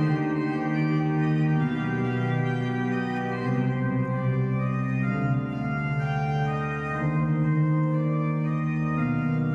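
Organ music: sustained chords changing every one to two seconds.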